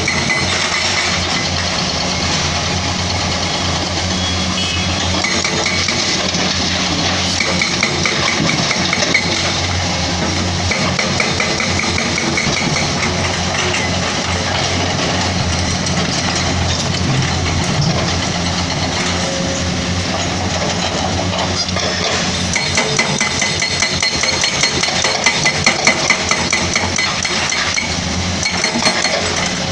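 Heavy diesel construction machinery, excavator and dump truck engines, running steadily at a worksite, with intermittent rattling and, in the last third, sharper regular knocks.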